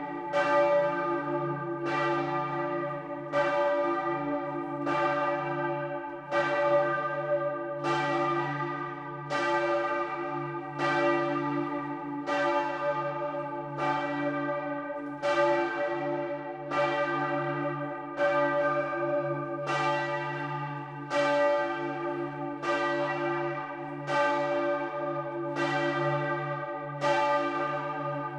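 Full peal of large bronze church bells cast by Grassmayr, swinging and sounding close up in the bell tower. Strikes come roughly every second and overlap into continuous ringing of many pitches.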